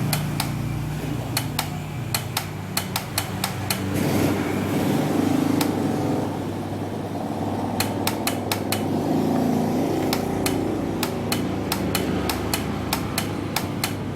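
Repeated sharp clicks or taps, a few a second and unevenly spaced, over a steady low hum.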